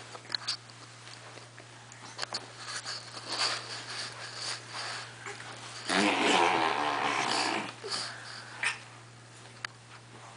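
Breathy snuffling and blowing noises from an adult nuzzling a baby, with one loud noisy burst about six seconds in that lasts about a second and a half. Soft rustles on carpet and small clicks come and go around it, over a steady low hum.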